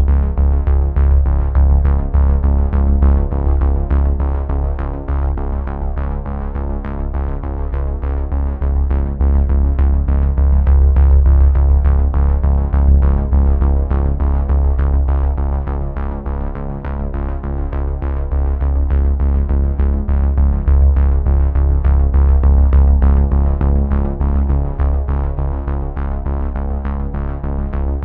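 Background music: an electronic track with a steady beat, held synthesizer tones and a heavy bass.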